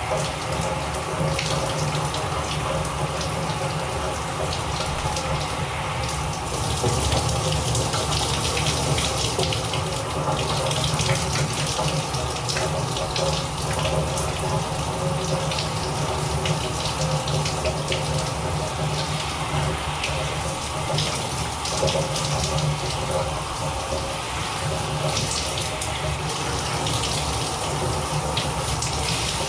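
Shower running steadily, water spraying.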